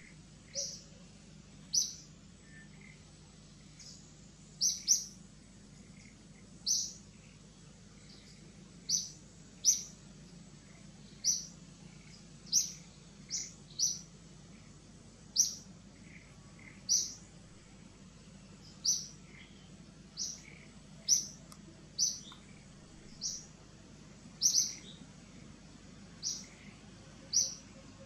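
A bird calling with short, high chirps, one every second or two, sometimes two in quick succession.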